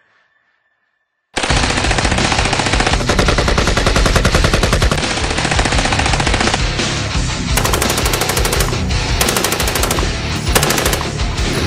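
Dubbed-in machine-gun sound effect firing in long rapid bursts over background music. It starts about a second in after silence, with sharper, louder bursts in the second half.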